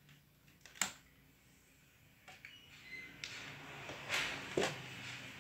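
Laptop being handled as it is switched on: a sharp click about a second in, then a rising hiss and two louder knocks or rustles near the end.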